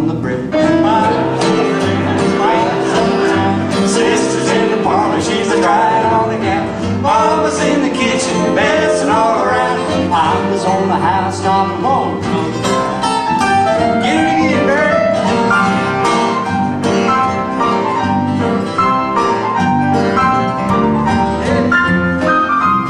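Two acoustic guitars playing a folk-blues tune together live, a continuous run of picked notes and chords.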